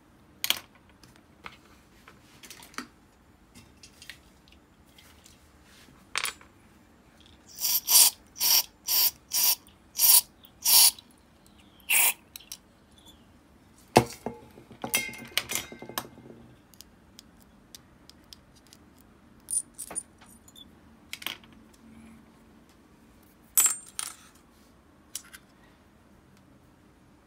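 Small metal parts of a disassembled Abu Garcia Ambassadeur 5500C baitcasting reel clinking against a glass jar of cleaning liquid, its stainless mesh strainer basket and metal parts cups. Scattered sharp clicks, with a run of about seven loud clinks, roughly two a second, about a third of the way in, and a brief rattle around the middle.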